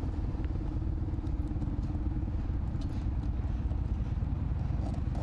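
Motorcycle engines running: a steady low rumble.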